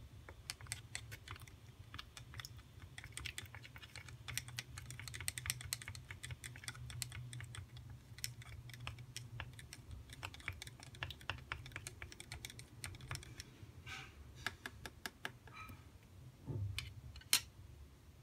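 Plastic stirring stick ticking and scraping against the inside of a thin plastic cup as salt is stirred into water, a fast, irregular run of light clicks. Near the end a few sharper knocks as the stick is set down on the plastic tray.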